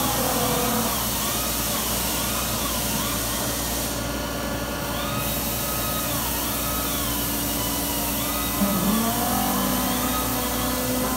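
Industrial robot arm at work in a trimming cell: a whine from its motors or tool that rises and falls in pitch over and over as it moves, over a steady machinery hum.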